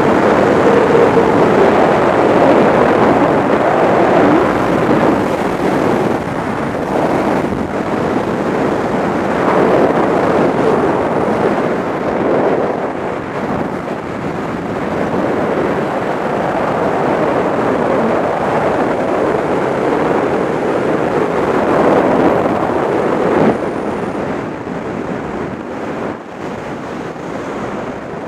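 Loud, steady rush of wind over the microphone from the airflow of a wingsuit in flight, swelling and easing a little in strength.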